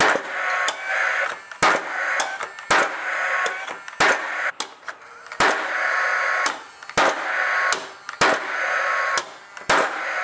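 Paslode cordless gas-powered framing nailer driving nails into a hardwood board: about eight sharp shots, roughly one every 1 to 1.5 seconds, each followed by a short whir from the gun.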